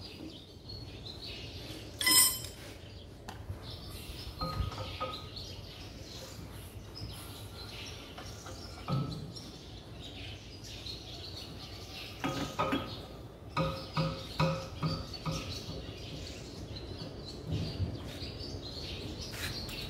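Metal hand tools clinking and tapping on the rocker gear of an 8DC11 V8 diesel engine while its valve clearances are set. There is one sharp ringing clink about two seconds in, scattered taps after it, and a run of quick clicks about twelve to fifteen seconds in.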